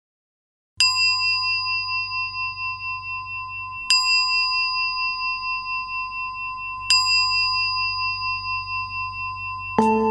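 A metal bell struck three times, about three seconds apart, each stroke ringing on at a high, clear pitch and slowly fading. Near the end a lower-pitched chime is struck.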